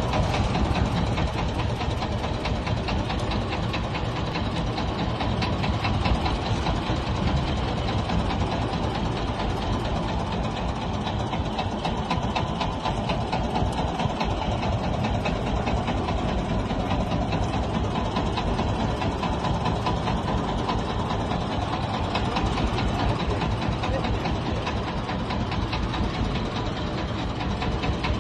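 Fishing boat's engine running steadily, with an even, rapid chug.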